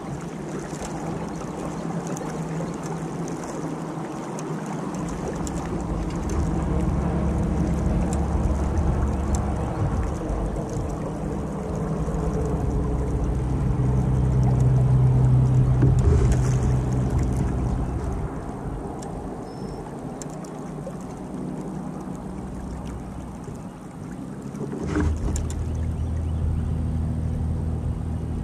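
A boat engine running steadily, its pitch shifting and growing louder in the middle, then picking up again near the end.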